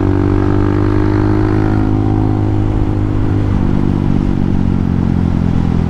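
Hawk 250's single-cylinder four-stroke engine running while the bike is ridden. Its revs ease slowly down, then settle into a lower steady note about three and a half seconds in.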